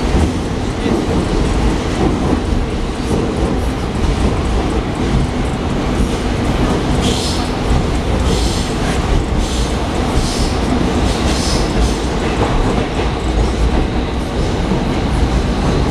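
81-740 Rusich metro train running between stations, heard from inside the car by the doors: a steady loud rumble of wheels on rail, with several brief high hisses about halfway through.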